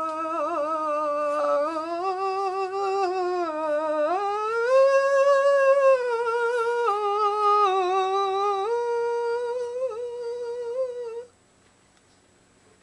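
A single voice humming a slow wordless tune in long held notes that step up and down, climbing to its highest note around the middle, and stopping about eleven seconds in.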